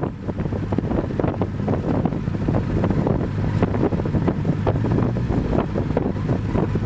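Cessna 172's piston engine and propeller running steadily, heard from inside the cabin as a low, even drone, with wind buffeting the microphone.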